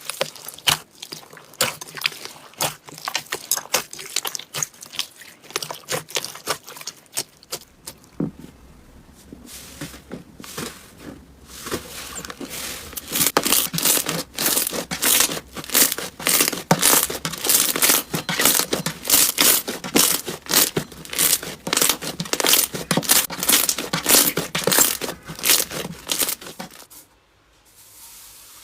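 Slime being played with by hand, giving rapid crackling and popping clicks. It grows busier and louder about halfway through and stops abruptly near the end.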